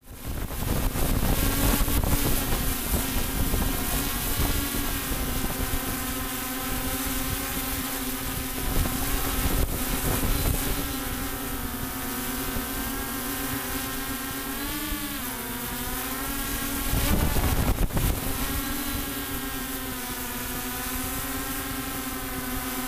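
Multicopter's electric motors and propellers whining steadily, heard from the copter's own camera, the pitch dipping briefly and recovering about fifteen seconds in. Wind rumbles on the microphone underneath, strongest about seventeen seconds in.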